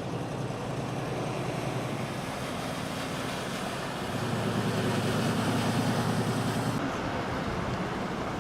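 Car engine and road noise heard from inside a moving car, a low steady hum that grows louder about halfway through and drops back near the end.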